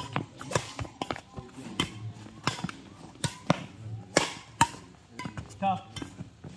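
Badminton racquets hitting a shuttlecock back and forth in a fast doubles rally: sharp hits come roughly twice a second, with a short voice near the end.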